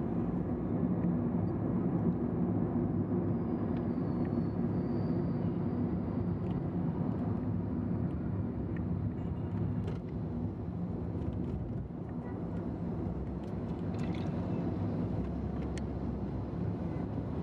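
Steady low rumble of a moving vehicle's engine and road noise, with a few faint clicks.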